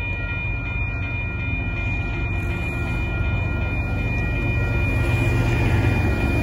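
Railroad crossing bell ringing in quick, even strokes with the gates down, while the low rumble of an approaching train grows steadily louder.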